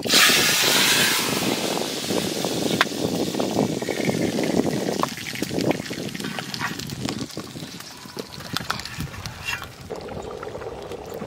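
Dried red chillies and panch phoron frying in hot mustard oil for a tempering. A loud sizzle flares up at the start and dies down over a couple of seconds, then the oil keeps sizzling with scattered pops and crackles.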